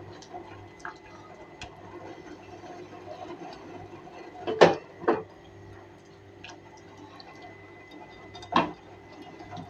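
Hot water draining and dripping from freshly blanched spinach in a stainless-steel mesh strainer into a steel sink, with small scattered ticks. Sharp clicks come twice about halfway through and once near the end, over a steady faint hum.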